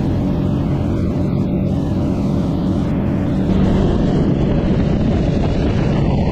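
Twin engines of a Sea Ray 400 Sundancer cruiser running at speed, a steady low drone under the rush of water and spray churning along the hull, a little louder past the middle.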